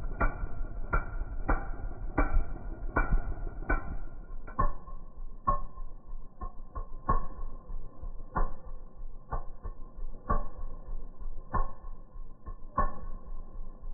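Two-stroke engine running, heard slowed right down along with the slow-motion footage: a string of irregular deep thumps, about one to two a second, over a low rumble.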